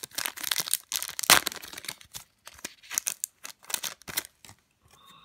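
Foil wrapper of an Upper Deck hockey card pack being torn open and crinkled by hand: a rapid run of crackles that thins out after about four seconds.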